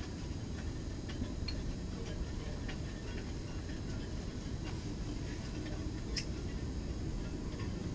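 Steady low rumble of wind buffeting, with scattered faint ticks and clicks.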